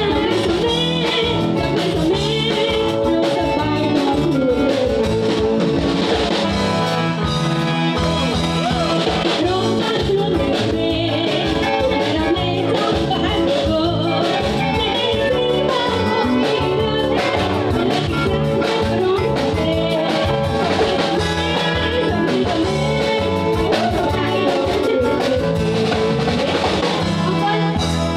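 Live band playing dance music with a singing voice, electric guitar and drums over a steady beat.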